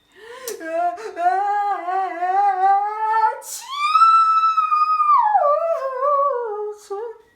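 A woman's acted, drawn-out sneeze. A long wavering 'ahh' rises slowly for about three seconds, then breaks with a sharp burst about three and a half seconds in into a high held cry, which slides down in pitch and fades near the end.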